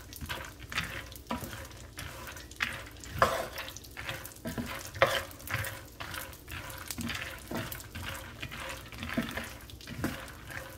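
Raw peanuts frying in oil in a skillet, sizzling, while a wooden spoon stirs them. The repeated strokes, roughly one or two a second, scrape the pan and shuffle the peanuts.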